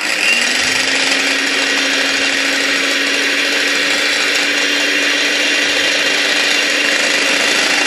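Electric hand mixer starting up and running at a steady speed, its twin beaters whipping cream in a glass bowl: a constant motor hum with a whirring, churning noise.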